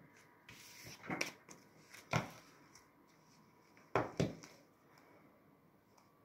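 A deck of playing cards handled on a tabletop: a few light clicks and taps of cards, then two sharp knocks close together about four seconds in as the deck is squared against the table.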